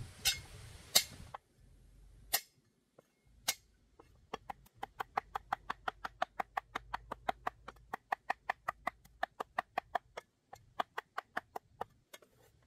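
A knife chopping on a cutting board: a few single cuts, then a fast, even run of strokes at about five a second with one short pause.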